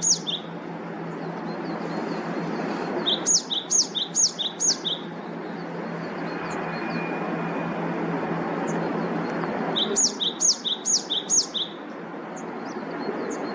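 A bird calling in two runs of quick paired chirps, each pair a high falling note then a lower one, over the steady rush of a valley stream.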